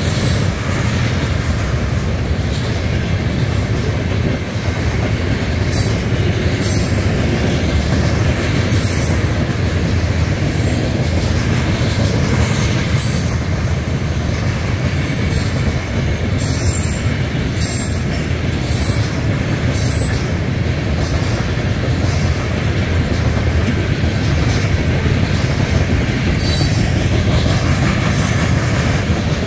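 Freight train of covered hopper cars rolling past: a steady heavy rumble and clatter of steel wheels on rail, with brief high-pitched hisses now and then.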